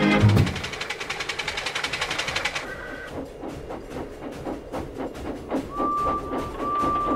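Steam engine sound effects: rapid, rhythmic chuffing that slows to a steadier puffing, with a short high whistle about three seconds in and a long, lower whistle blown in two parts near the end. A few bars of music end just after the start.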